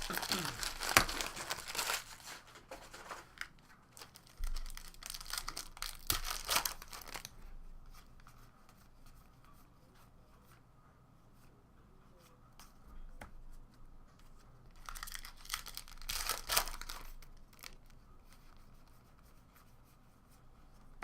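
Foil trading-card pack wrappers being torn open and crinkled in three bursts: at the start, again about five to seven seconds in, and again about fifteen to seventeen seconds in, with quiet stretches between.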